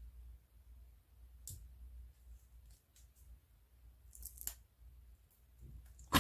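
Paper rustling and crinkling a few times, briefly and faintly, as cut paper flaps are handled and pressed onto a cardboard tube.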